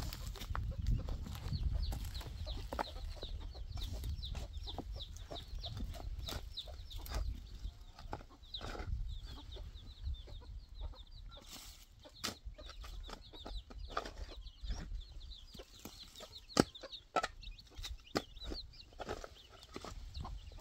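Shovel and hoe blades knocking and scraping into dry, stony soil in scattered strikes, over a steady run of quick, high chirping from birds. A low rumble sits under the first couple of seconds.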